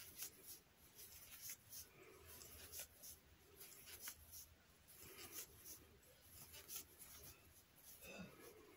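Faint, irregular scratching and rustling of yarn being worked with a crochet hook, stitch after stitch.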